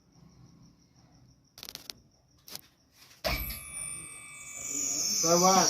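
Flow Tech V6 submersible pump motor switched on after a couple of knocks: it starts suddenly about three seconds in with a hum and a high whine that slides down in pitch and settles, getting louder. The men testing it take the noise for something rubbing inside.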